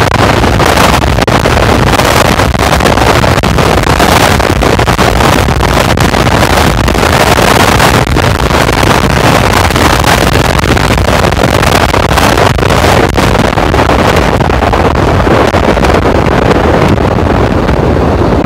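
Heavy wind rush on the microphone over the running engine of a TVS Apache RTR 200 single-cylinder motorcycle, ridden at around 100 km/h. The rush eases over the last few seconds as the bike slows.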